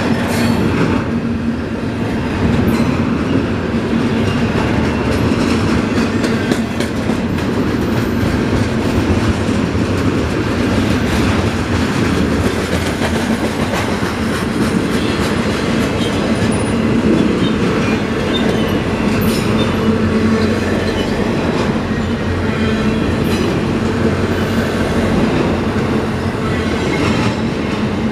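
Double-stack intermodal freight cars rolling past: a steady rumble of steel wheels on rail, with scattered clicks over the rail joints.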